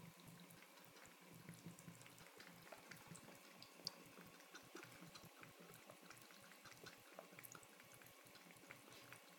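Faint trickle of a thin stream running from a bathroom sink faucet, with scattered small ticks and splashes as a cat laps from the stream; one sharper tick about four seconds in.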